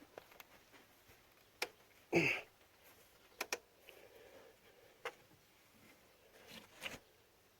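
Scattered sharp clicks and knocks of hand tools against metal under the hood, with one louder, longer scraping sound about two seconds in.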